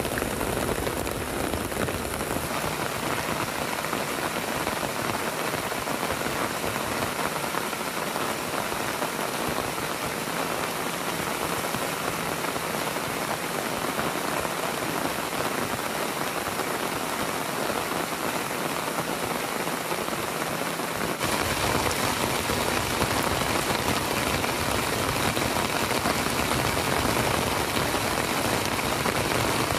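Heavy rain falling steadily on the trees and the soaked campsite ground. A little over two-thirds of the way through, it grows louder and fuller.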